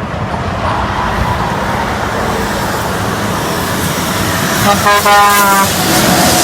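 Highway traffic going by, then a loud blast from a truck's horn, about a second long, near the end, followed by the rush of the truck passing.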